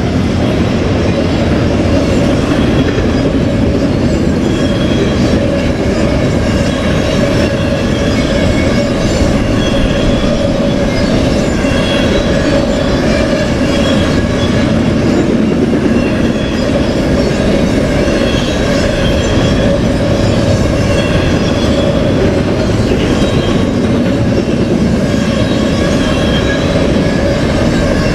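Double-stack intermodal freight train rolling past at close range: a steady, loud rumble of steel wheels on rail, with short high-pitched wheel squeals coming again and again. Diesel locomotives are still passing at the start, then the loaded well cars.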